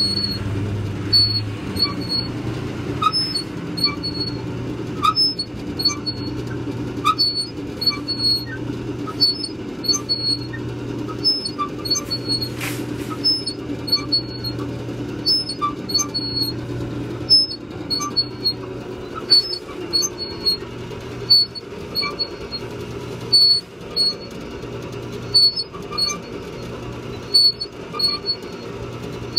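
Coin-operated kiddie ride train by National Entertainment Network running: a steady motor hum with regular squeaks and clicks from its moving mechanism, a louder one about every two seconds.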